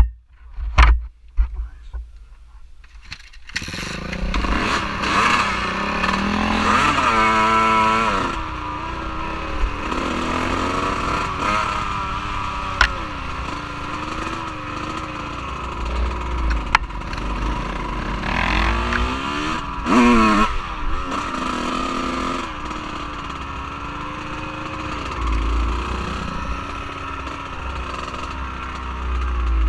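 Off-road vehicle engine running and revving up and down under way, its pitch rising and falling repeatedly, over a heavy low rumble. A few sharp knocks come before the engine sound rises about three and a half seconds in.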